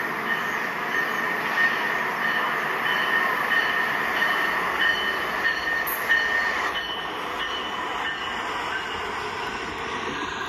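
LEGO 60197 Passenger Train's battery-powered motor running, with a steady whir and faint whine as the train rolls along plastic LEGO track, its wheels ticking over the track joints about twice a second.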